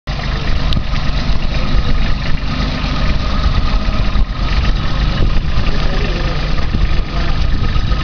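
Kubota B2420 compact tractor's three-cylinder diesel engine running steadily, with a fast low chugging throb.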